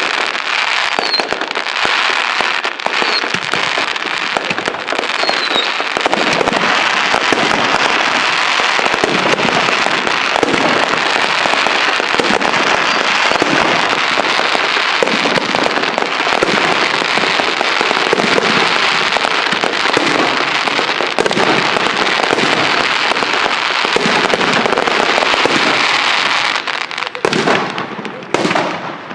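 Fireworks grand finale: a dense, unbroken barrage of bangs and crackles from many shells bursting at once, thinning to a few separate bangs near the end.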